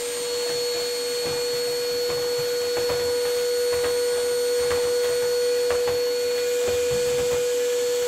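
Vacuum cleaner running steadily: an even motor whine over a rush of air, with faint knocks about once a second.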